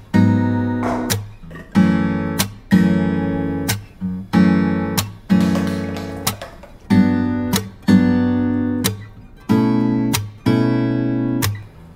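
Background music: acoustic guitar strumming chords, with a fresh strum about once a second.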